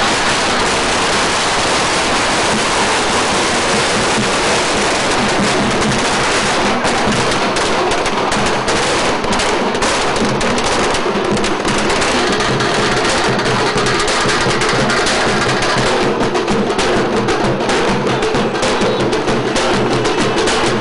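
Fast, continuous drumming, loud and dense.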